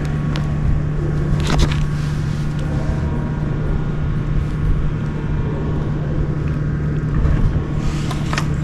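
Steady low hum of an idling engine, with a couple of short knocks about one and a half seconds in and near the end.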